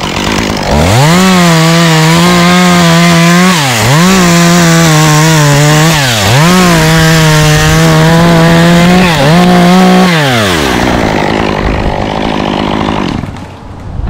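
Chainsaw revved to full throttle and held, its speed dropping briefly three times, then let back down to idle about ten seconds in, while cutting a pine limb.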